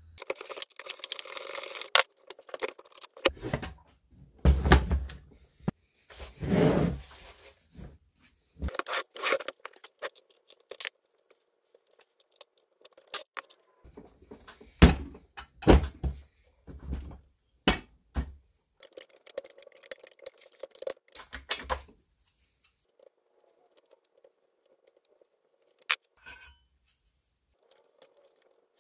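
Irregular clinks, knocks and scrapes of metal parts and hand tools being handled while a vintage Vespa scooter engine is dismantled, with a few nearly quiet seconds near the end.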